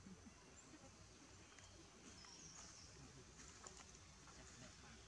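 Near silence: faint outdoor ambience with a few faint, short high-pitched chirps, most of them around the middle.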